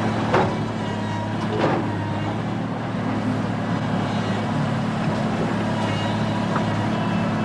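Excavator's diesel engine running steadily, with two sharp knocks in the first two seconds.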